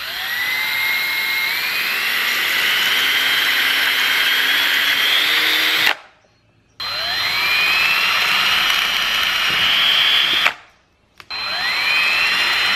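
Power drill boring out the shift-feel holes in a 4L80e Transgo separator plate with a 0.096-inch bit, the size for a firm shift. It runs three times, the motor whine rising in pitch as it spins up each time and then holding steady, with two short breaks between runs.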